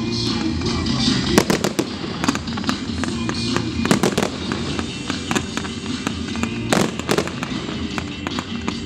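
Fireworks display: a rapid run of bangs and crackling bursts from aerial shells and rising comets, the heaviest reports about a second and a half in, about four seconds in and about seven seconds in, with music playing underneath.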